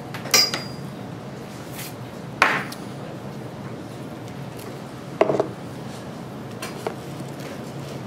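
Handling clatter as an XLR cable with metal connectors is coiled and packed into a hard plastic equipment case: three sharp knocks spaced a couple of seconds apart, then a lighter click, over a steady low room hum.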